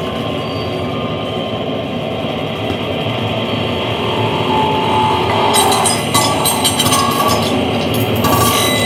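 Live electronic noise music played on a mixer and controller: a dense, steady rumbling wash, joined about five and a half seconds in by clicking, glitchy high noise and a few held tones.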